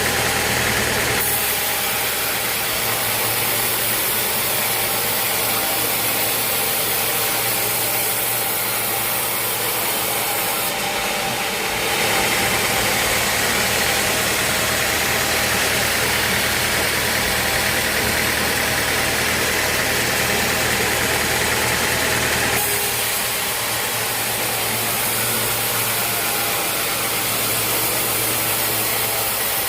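Sawmill machinery running steadily: a motor hum under a wide hiss. The sound changes abruptly three times, about a second in, around the middle and two-thirds of the way through.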